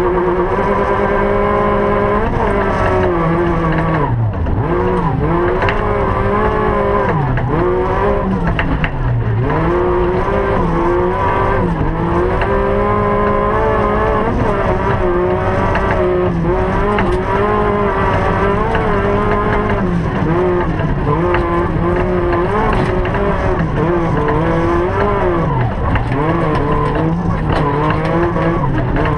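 Rally car engine heard from inside the cockpit, running hard, its revs dropping sharply and climbing again every few seconds through the whole run.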